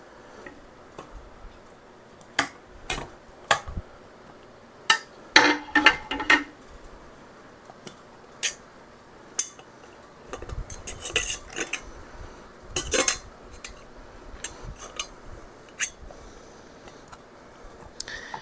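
Scattered clinks and taps of kitchen utensils against a stainless steel stockpot, a metal canning funnel and a glass mason jar as apple pie filling is ladled into the jar and the slices are pushed into place. There is a busier run of clinks a little past the middle.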